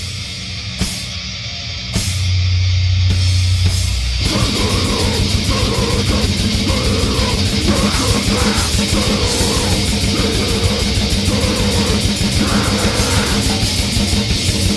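Lo-fi death/grind demo recording: a few seconds of sparse hits and a low sustained bass note, then about four seconds in the full band comes in with fast, dense drumming under distorted guitar.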